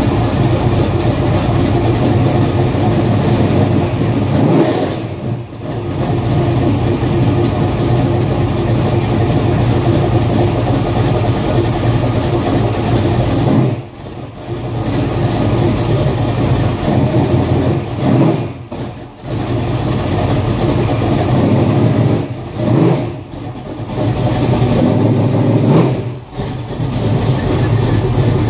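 Small-block Ford V8 in a Fox-body Mustang running loud and steady, with about five short throttle changes where the sound swells briefly and then dips. The car is driven into the garage by the end.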